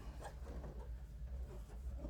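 Faint clicks of window-blind slats tilting as the tilt wand is twisted, over a low steady hum.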